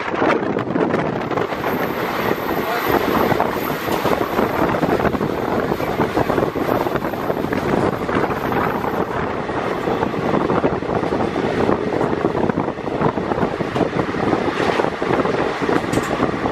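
Express passenger train running at speed, heard from an open coach door: steady wind rush buffeting the microphone over the rumble of the wheels on the rails. Near the end an oncoming train passes close alongside.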